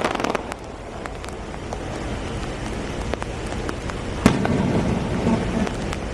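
Aerial fireworks going off: a crackle of small bursts at the start, scattered pops, and one sharp bang about four seconds in, over a steady hiss of rain.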